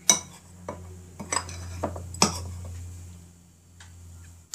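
Metal spoon scraping and clinking against a white ceramic bowl as sticky oat-and-buckwheat-flake cookie mixture is scooped out. There are several sharp clinks in the first two and a half seconds, then quieter scraping, over a low steady hum.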